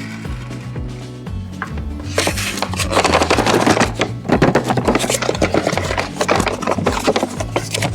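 Background music with a steady bass line. From about two seconds in, a dense run of fast clicks, taps and scrapes from toy packaging and plastic toy parts being handled.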